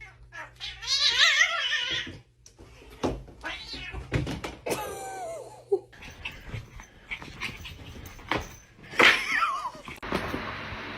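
Cats meowing and yowling: a long, wavering yowl about a second in, then shorter meows later.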